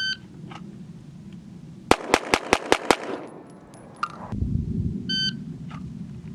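Shot timer beeps, then about two seconds later a pistol fires six rapid shots in just over a second. A second timer beep sounds about five seconds in.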